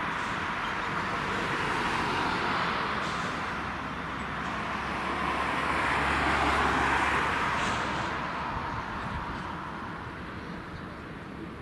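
Beechcraft King Air twin-turboprop engines and propellers heard from a distance as the aircraft rolls along the runway. It is a steady rush with a low hum that grows loudest about six seconds in and then fades.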